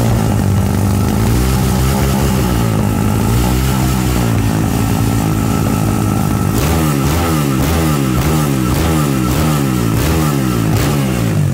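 Tuned motorcycle engine with an open bell-mouth intake and aftermarket exhaust, running loud with slow swells in revs for the first six seconds or so. It is then blipped rapidly, about two quick revs a second, through the rest.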